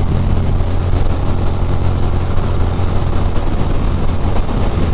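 Ducati Monster 620's air-cooled V-twin engine running steadily at highway speed, a constant low hum, with wind rushing over the microphone.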